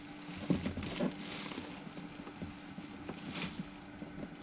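Faint handling noise of an electrical cable being worked into the wire clamp at a metal breaker panel's knockout hole: light rustles and small clicks and taps, over a steady faint hum.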